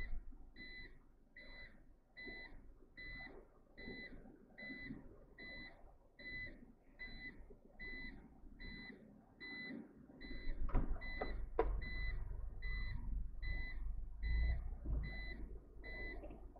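A vehicle's reversing beeper sounding short high beeps of one pitch, a little over one a second. About two-thirds of the way through a low rumble and two sharp knocks join it.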